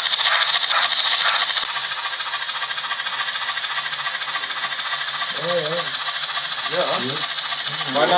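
Narrow-gauge model freight train rolling along the track: a steady metallic rattle and hiss of its wheels on the rails, louder in the first couple of seconds.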